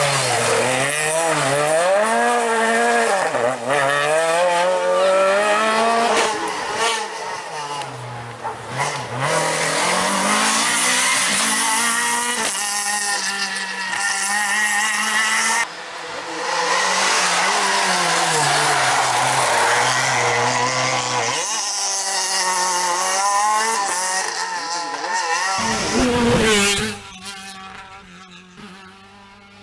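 Renault Clio R3 rally car's four-cylinder engine at full effort, its pitch climbing and dropping again and again as it revs up and shifts through the gears. Near the end there is a brief loud burst, then the engine note settles lower and quieter.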